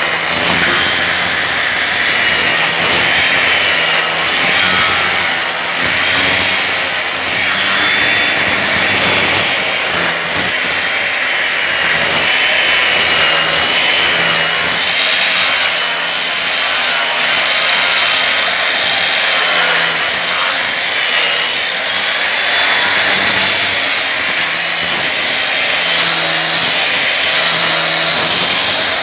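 Electric angle grinder fitted with an 80-grit sandpaper disc, running steadily while dry-sanding marble skirting to remove scratch lines left by a coarse grinding cup. A high motor whine that wavers slightly in pitch rides over the hiss of abrasive on stone.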